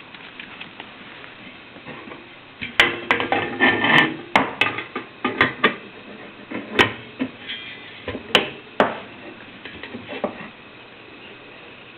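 Metal parts and tools of a coffee sample roaster clinking and knocking irregularly as it is taken apart. The sharp clanks start about three seconds in, come thickest in the middle, and thin out near the end.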